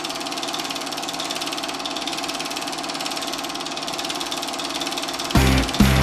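Film projector running: a rapid, even mechanical clatter. Near the end, louder music with a heavy beat cuts in.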